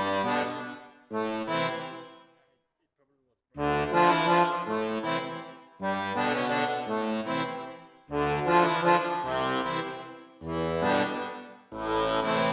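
Background music in phrases of one to two seconds, each starting sharply, with a pause of about a second some two and a half seconds in.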